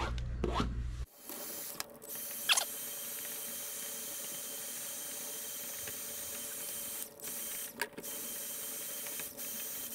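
Cordless heat gun running with a steady fan-motor whir, softening the silicone in a solar panel junction box. It starts about a second in, with a click soon after and a few short dips near the end.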